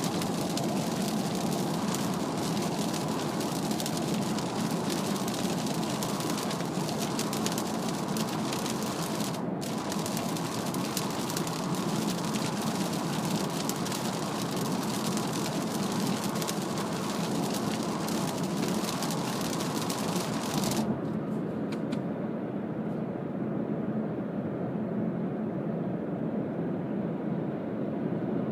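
Cabin noise of a Mazda CX-3 diesel at expressway speed in heavy rain: a steady hiss of wet tyres, spray and rain over a low road-and-engine drone. About 21 seconds in, the hiss suddenly drops away, leaving the lower drone.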